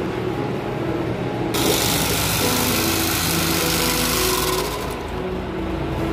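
Portable electric bag-closing sewing machine stitching shut the mouth of a woven polypropylene sack; it runs in one burst of about three seconds, starting about a second and a half in.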